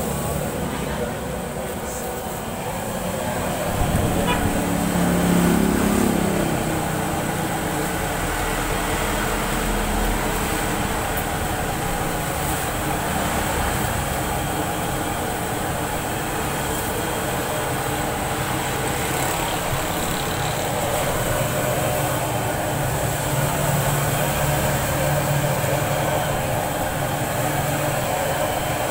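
Steady roadside traffic noise, with a louder low rumble of a passing vehicle about four to six seconds in.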